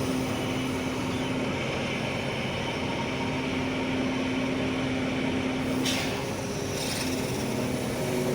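A hydraulic machine's engine and hydraulic system running steadily under load while its boom is worked, with a steady droning tone through it. This is the abnormal sound, with the hydraulic hose vibrating, that the owner traces to a faulty hydraulic pump rather than the relief valve.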